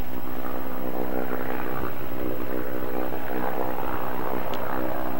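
Propeller engines of a low-flying blimp droning steadily overhead, an even, unchanging hum.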